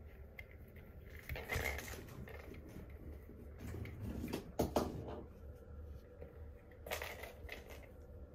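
Kittens scrambling in a clear acrylic bowl cat bed: scuffs and light knocks of paws and a small plastic ball against the plastic. These come in a few short flurries about a second, four seconds and seven seconds in, with one sharp knock in the middle.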